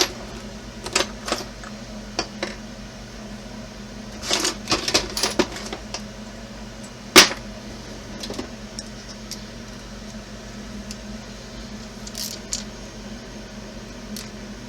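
Irregular sharp clicks, taps and small rattles of plastic and metal parts and hand tools being handled on a workbench, with a quick cluster of clicks about four to five seconds in and a single loud click about seven seconds in, over a steady low hum.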